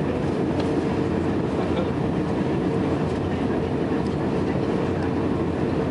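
Steady cabin noise inside an Airbus A300 airliner on final approach with flaps extended: engine noise and rushing air, with a steady hum running under it.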